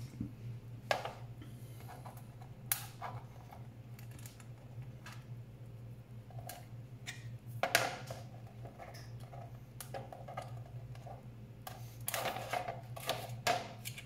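Scattered clicks and knocks of a manual burr coffee grinder's small parts being handled and set down on a plastic tray. The sharpest knock comes about halfway through, and a quick run of clicks follows near the end, over a steady low hum.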